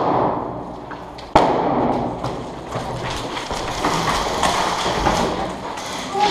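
A single sharp bang about a second and a half in, then several seconds of continuous scuffing and rustling with scattered knocks as an airsoft player moves over concrete rubble.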